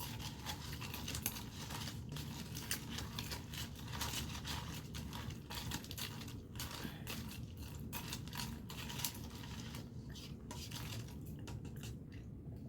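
Spoon clinking and scraping against a container of banana con yelo, working through shaved ice, in a dense run of small clicks and scrapes.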